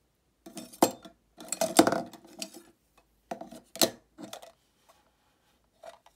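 Pens and markers clicking and rattling against a 3D-printed plastic pencil case as they are put in and fitted into its tube, in several short bursts of clatter, loudest about two seconds in.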